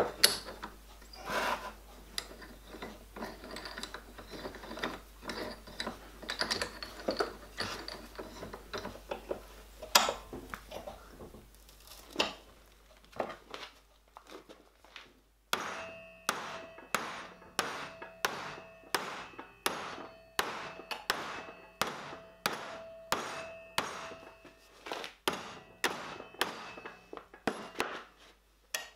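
Clicks and knocks as a G-clamp is wound down onto an annealed copper plate and its steel former on a workbench. Partway through, a steady run of hammer blows begins, about two a second, each ringing briefly as the plate is tapped flat over the former.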